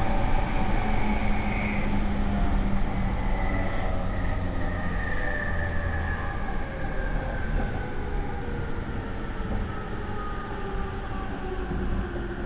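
JR E231-series electric train heard from inside the motor car: the Mitsubishi IGBT VVVF inverter and traction motors whine in several tones that slowly fall in pitch as the train slows, over a steady rumble of wheels on rail. The motor sound is loud, with a slightly abnormal edge.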